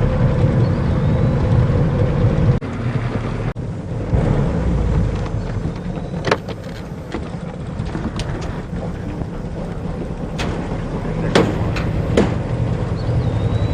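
Johnson 40 hp outboard motor running steadily with a low pulsing rumble, with a few sharp clicks or knocks about six seconds in and twice near the end.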